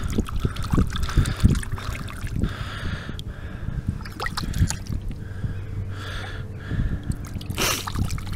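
Shallow seawater sloshing and splashing as a hand swishes a small paste pot back and forth to rinse it, in irregular short splashes, with one sharper splash near the end.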